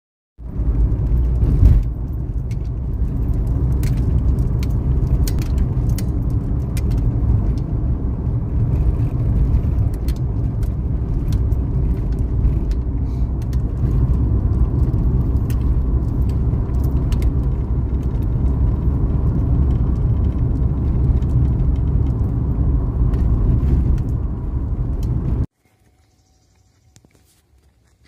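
Car cabin noise while driving on rough, patched asphalt: a steady low rumble of tyres and engine with frequent sharp clicks and rattles. It stops abruptly near the end.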